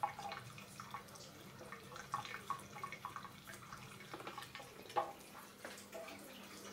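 A thin stream of water from a bathroom tap trickling into a washbasin, splashing and dripping irregularly. A single sharp knock about five seconds in.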